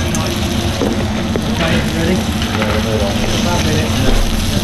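Girolle mushrooms frying in stainless steel pans, sizzling steadily, with a spoon stirring through a pan.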